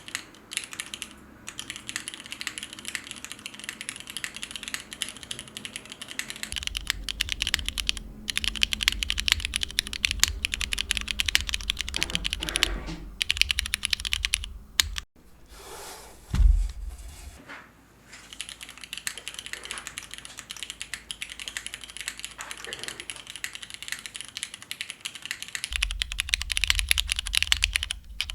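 Mode Tempo mechanical keyboard with Cherry MX2A Black linear switches in a polycarbonate plate and GMK keycaps being typed on in fast, continuous runs of keystrokes. Typing pauses briefly about halfway through, where a single louder low thump sounds.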